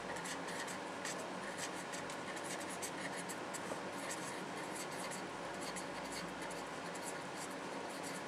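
Pen writing: a run of short, quick scratchy strokes over a faint steady hiss.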